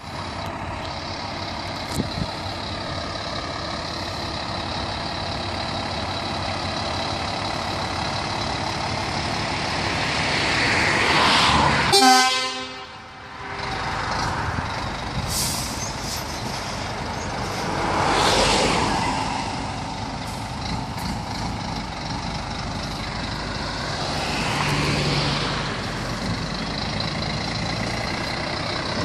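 Scania 124 420 truck with open sidepipe exhaust and its straight-six diesel driving off with a loaded-down tipper trailer. The engine grows louder as it approaches, is loudest as it passes close by about 12 seconds in, and swells twice more as it pulls away.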